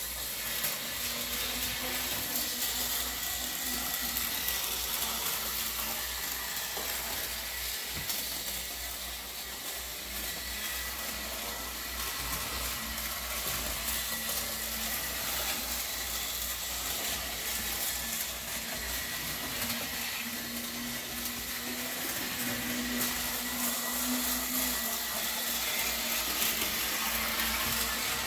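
Märklin model trains running on the layout's metal track: a steady whirring of small electric motors and wheels, with a motor hum that swells and fades and is strongest a little over twenty seconds in.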